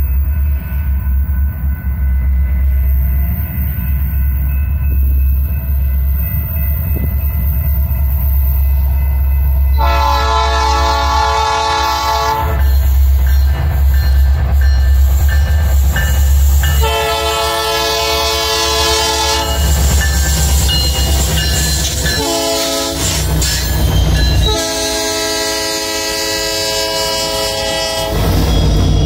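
BNSF freight train's diesel locomotives running, with the lead locomotive's multi-chime air horn sounding long, long, short, long from about ten seconds in: the standard grade-crossing signal.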